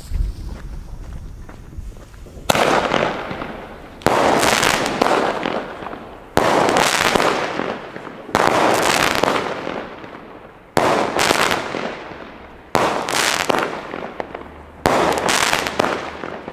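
Weco Gunpowder Barrels 8-shot firework cake firing: seven shots about two seconds apart, each followed by a crackling burst that dies away.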